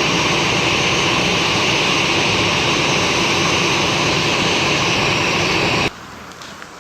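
Steady, loud noise of a jet airliner's engines running, cutting off suddenly about six seconds in, after which only quieter rain noise remains.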